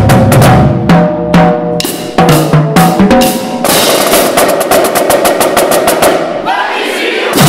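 Marching drum line of snare drums, tenor drums and bass drums playing a cadence: loud rhythmic strokes on the pitched tenors and bass drums, then about three and a half seconds in a fast snare roll lasting a few seconds. Near the end the bass drums drop out for about a second before the full line comes back in.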